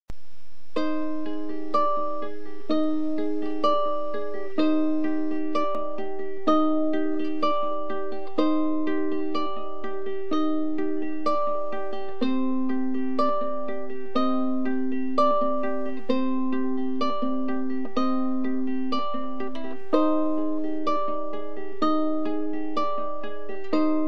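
Ukulele strumming chords in a steady rhythm, with an accented strum about once a second. The chord changes to a lower one about halfway through and returns to the first near the end.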